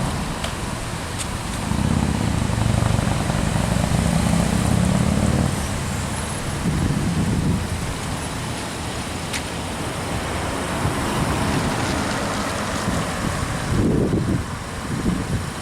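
Road traffic: cars driving past, with engine rumble and tyre noise. One vehicle passes loudest from about two to five seconds in, and a shorter one follows soon after.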